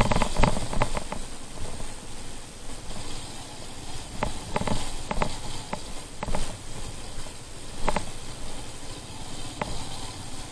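Steady wind hiss over the microphone of a moving motorbike, broken by a few sharp knocks and clicks, several in the first second and others spread through the rest.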